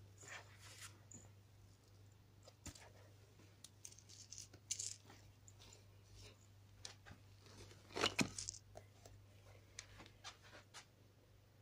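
A plastic basket of cat toys being handled: scattered rustles, scrapes and small clicks as the toys shift and the cloth over the basket moves, with a louder clatter about eight seconds in.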